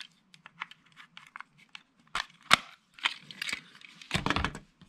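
Plastic shell of an HO-scale Life-Like model locomotive being pried off its chassis with a plastic pry tool: a string of small clicks and snaps, one sharper snap about two and a half seconds in, then a duller knock and rustle near the end as the parts are handled.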